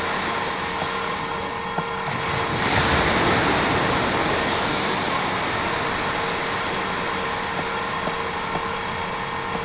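Surf washing steadily on the beach with a faint steady hum underneath; a wave swells up about two and a half seconds in and slowly dies away.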